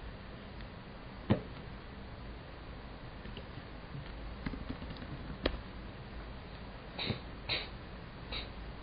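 Quiet room with a low steady hum and a few isolated sharp clicks from a computer keyboard and mouse, as the password is typed in and login is confirmed. Near the end come three short, soft, breathy noises, each roughly a fifth of a second long.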